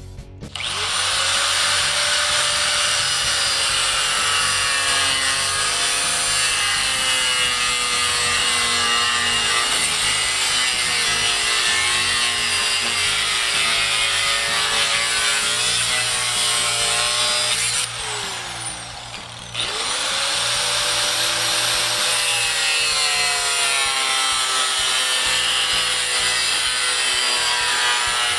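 Corded angle grinder with an abrasive cutoff wheel spinning up and cutting a slot into a small metal joiner piece: a steady whine over the grinding noise of the cut. About two-thirds of the way through it is switched off and its whine falls as it winds down, then it starts again and spins back up to carry on cutting.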